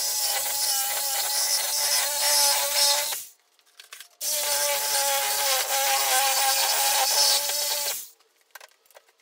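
DeWalt 12-amp corded reciprocating saw cutting through wooden 4x4 posts, a loud steady buzz. It stops about three seconds in, starts again after about a second on the next post, and runs about four more seconds before stopping, followed by a few light knocks.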